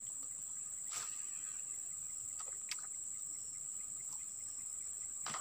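Insects buzzing steadily in one continuous high-pitched tone, with a few faint ticks and a rustle near the end.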